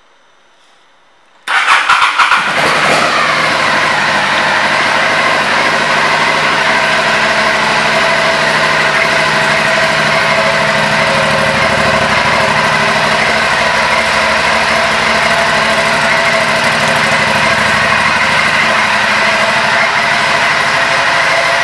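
2015 Aprilia Shiver 750's V-twin engine starting about a second and a half in: it catches at once with a few loud pulses, its revs dropping over the next second, then settles into a steady idle.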